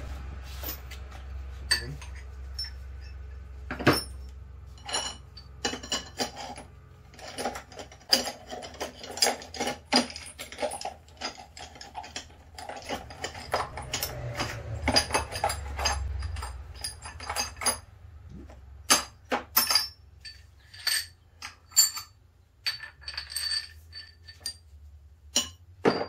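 Metal tools and parts clinking and clattering as they are handled and set down, in irregular sharp clicks and knocks, over a low steady hum.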